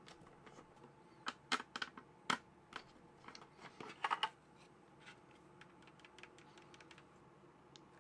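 Scattered light clicks and taps of hands handling a Blackview mini PC's plastic bottom panel and a screwdriver, with a quick run of clicks about four seconds in. Only faint handling noise follows.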